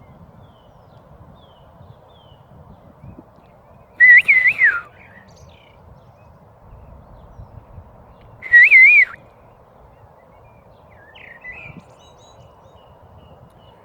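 Two short, loud warbling whistled phrases about four and a half seconds apart, with a few faint bird chirps between them.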